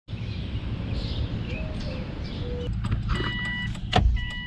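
A car's electronic warning chime beeping about once a second, starting about three seconds in, over a low rumble, with a few clicks and a loud thump about four seconds in.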